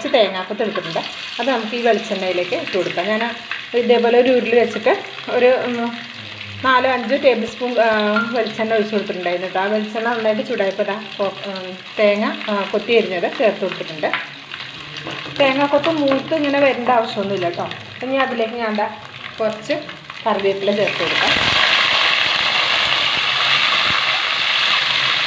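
Coconut slices frying in hot coconut oil in an aluminium pot. About 21 s in, a loud, steady sizzle starts as curry leaves hit the hot oil and are stirred with a wooden spatula.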